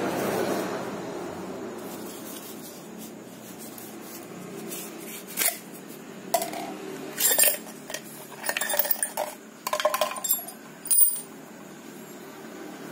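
Steel hole saw parts, the shank and extension rod and the cup, clinking and knocking as they are handled and slid out of a plastic packaging tube, after some rustling of the plastic at first. The sharp metallic clinks come in an irregular run through the middle.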